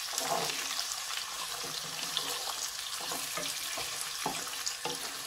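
Carrots and green beans sizzling in hot oil in a wok, a steady hiss, while a spatula stirs them with a few short scrapes and knocks against the nonstick pan.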